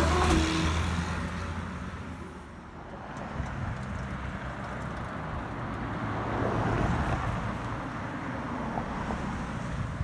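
Roadside traffic. A passing truck's low engine rumble fades away over the first couple of seconds, then another vehicle swells past about six to seven seconds in.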